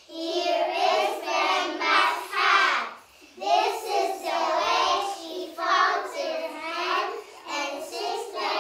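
A group of young children singing a song together, in phrases with a short break about three seconds in.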